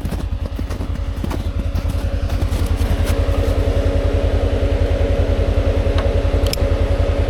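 Side-by-side UTV engine running steadily, with a steady whine that grows louder about three seconds in; a few light clicks near the end.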